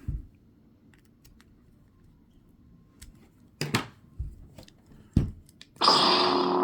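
Small clicks and knocks as a blade is seated in a lightsaber hilt. Near the end, the Proffie-powered saber ignites and a loud, steady hum comes from its speaker.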